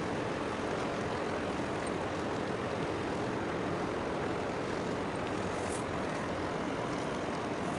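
Steady, unbroken rumble of ship engines across harbour water.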